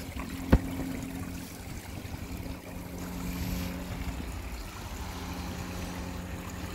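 Water trickling into a small garden pond from its waterfall, over a steady low hum. One sharp click about half a second in.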